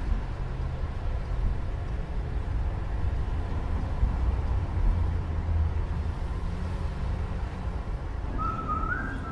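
Steady low rumble of city traffic noise, with a brief two-step tone that steps up in pitch near the end.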